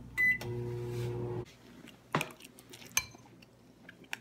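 Microwave oven keypad beeps once as start is pressed, and the oven starts running with a steady hum that cuts off about a second and a half in. Then two sharp clinks of a spoon against a bowl, about a second apart.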